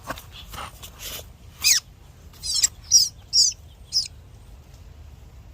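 Small bird tangled in netting giving five sharp, high-pitched calls, each a quick falling note, in the second half. A few soft scuffs come in the first second.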